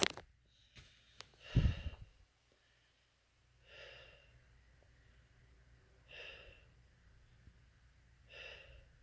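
A person breathing heavily through a painful dystonic leg spasm: three long, slow breaths about two and a half seconds apart. A thump with a rustle comes about a second and a half in.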